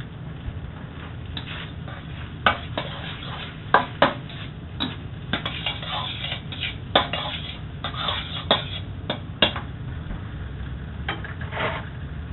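Metal spatula scraping and knocking against a wok as fried rice is stirred and tossed, in a quick run of sharp scrapes and clanks that stops for a moment near the end and then starts again briefly. A low steady hum runs underneath.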